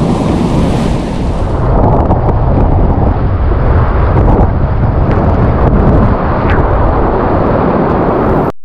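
Loud rushing and crashing of whitewater rapids around a kayak, with water and wind buffeting the microphone. The sound cuts off suddenly near the end.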